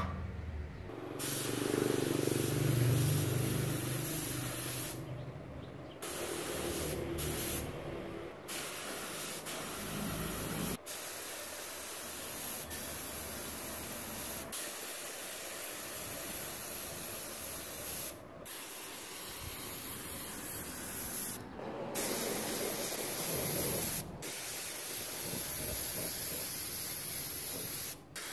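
Gravity-feed compressed-air spray gun spraying paint, a steady hiss that stops for several short breaks as the trigger is let go and then resumes.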